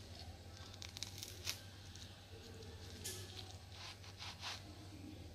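Serrated knife sawing through a toasted sandwich on a wooden chopping board: faint, scattered scratchy crunches as the blade cuts the toasted bread, over a steady low hum.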